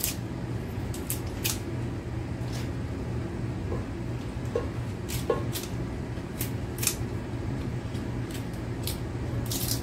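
Kitchen scissors snipping leafy greens into a pot: about a dozen sharp snips at an irregular pace.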